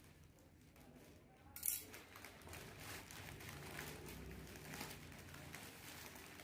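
Faint handling noises: a sharp click about a second and a half in, then soft rustling and small knocks.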